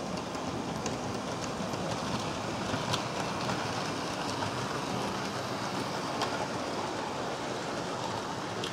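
HO scale model freight train hauled by a Union Pacific SD7 model locomotive running past on the track: a steady rolling rattle of small metal wheels on rails with scattered light clicks over rail joints.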